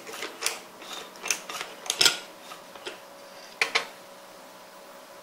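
Doser of an Anfim espresso grinder being worked to drop ground coffee into a portafilter: about a dozen sharp, irregular metal and plastic clacks over the first four seconds, over a faint steady hum.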